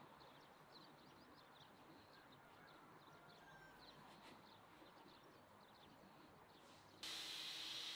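Near silence, with faint soft ticks and rustles of hands pinching raw dough together. About seven seconds in, a steady hiss switches on suddenly.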